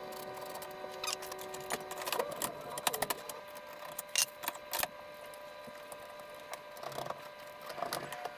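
Scattered clicks, knocks and light rattles of a Kenwood head unit and its plastic dash trim being pushed and fastened into the dash of a 1998 Jeep Wrangler TJ, over a faint steady hum.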